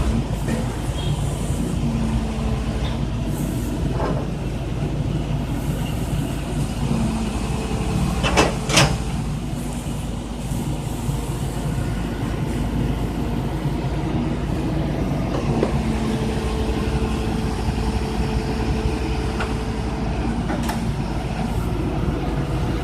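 Horizontal directional drilling rig's engine running steadily under a continuous drone. Scattered short knocks sound over it, with two loud, sharp knocks close together about eight and a half seconds in.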